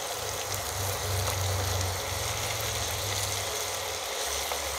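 Stuffed bitter gourds and onion-tomato masala sizzling as they fry in mustard oil in a pan, over a steady low hum.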